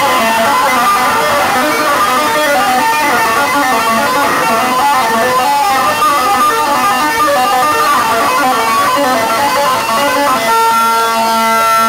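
Loud, heavily distorted electric bass guitar played live: a fast, wavering run of high notes that settles, about ten and a half seconds in, into a chord of steady held notes.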